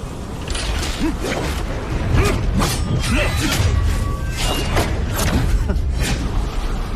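Animated battle sound effects: a dense run of sharp crackles and impacts over a heavy low rumble, the kind used for lightning powers, with background music underneath.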